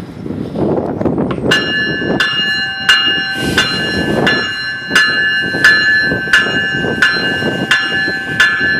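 GO Transit bilevel cab car's bell ringing at a steady pace, about one strike every 0.7 seconds, starting about a second and a half in, over the rumble of the train rolling past slowly.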